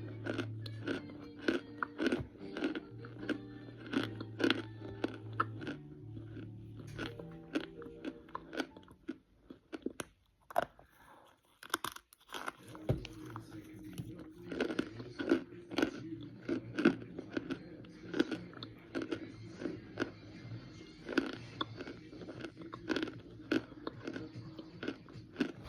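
Repeated crunching and chewing bites into a baked and microwaved hand-pressed brick of cornstarch, with a pause of a few seconds around the middle. Background music plays underneath.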